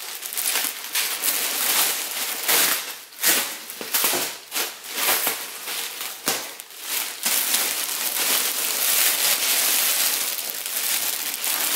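Clear plastic packaging bag crinkling and rustling as it is handled and pulled off a fabric picnic backpack, with irregular sharp crackles that are densest in the first half.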